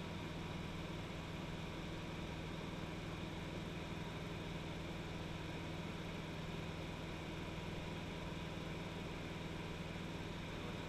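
Single-engine high-wing light plane in level flight, its piston engine and propeller running with a steady, unchanging drone, heard from inside the cabin.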